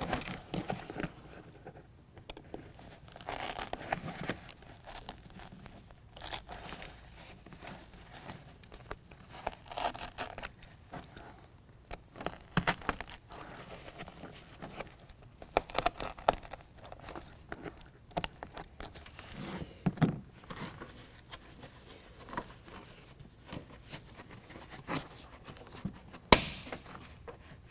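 Carpet-faced foam truck bed liner being pushed, pulled and pressed by hand, with irregular rustling, scraping and scattered small clicks. A sharp click comes near the end.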